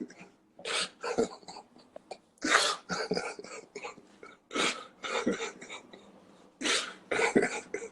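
A man coughing repeatedly in short, harsh bursts, several coughs in a row.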